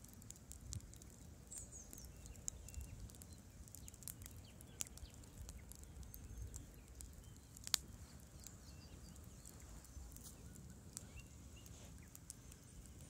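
Campfire crackling: burning wood giving irregular sharp snaps and pops, with one louder pop about eight seconds in, over a low rumble.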